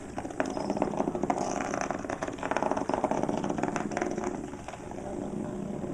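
Nano bug toys, small vibrating robot bugs, buzzing and rattling as they skitter over a hard surface. The rattle starts just after the opening and dies down after about four and a half seconds.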